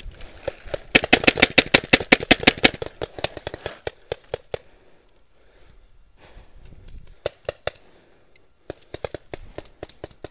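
Paintball marker fire: a rapid burst of sharp shots at about eight a second, then slower scattered shots, and two more quick bursts in the second half.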